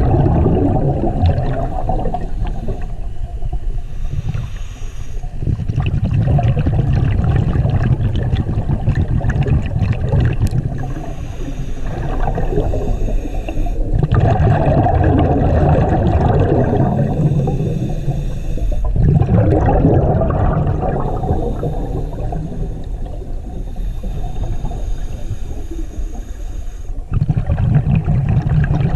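Scuba regulator breathing underwater: exhaled bubbles gurgle and rumble past the mask, swelling and easing in cycles a few seconds apart.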